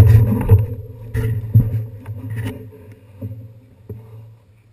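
Handling noise on a handlebar-mounted action camera in its housing as the bicycle is moved: a low rumble with a string of knocks and rattles, loud at first and fading over the next few seconds.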